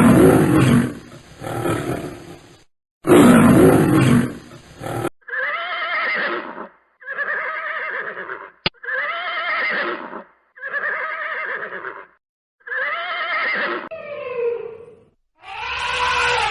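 Animal calls: two loud, rough roars in the first few seconds, then a run of about seven separate calls, each about a second long, rising and falling in pitch.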